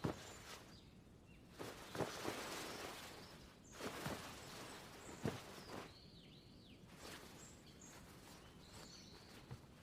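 Faint outdoor ambience: a low hiss with a handful of soft knocks and a few short bird chirps.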